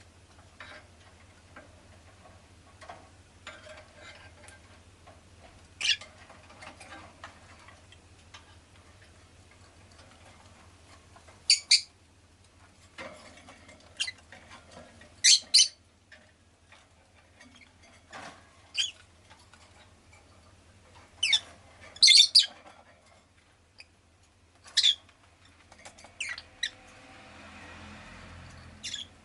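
Rosy-faced lovebird giving short, sharp, high chirps every few seconds, some in quick pairs, with faint clicks and scratching between them. A steady low hum runs underneath, and a soft swell of noise comes up near the end.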